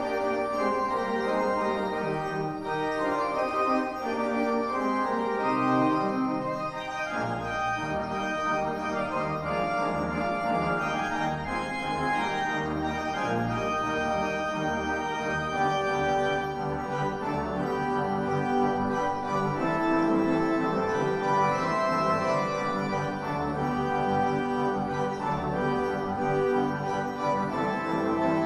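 Pipe organ playing sustained chords over many held notes. A deep pedal bass line comes in about seven seconds in.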